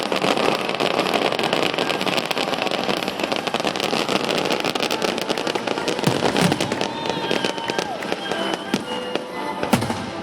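Fireworks display crackling densely, a fast continuous run of small pops with a few heavier bangs, and held tones coming in over it in the last few seconds.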